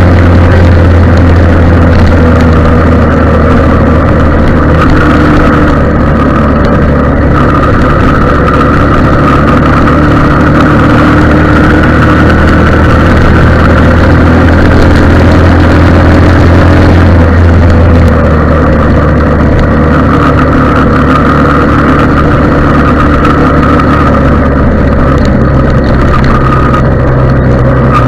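Motorcycle riding along at a steady speed, heard from a camera mounted on the bike: a loud, continuous engine drone with a low rumble, its tone shifting slightly about two-thirds of the way through.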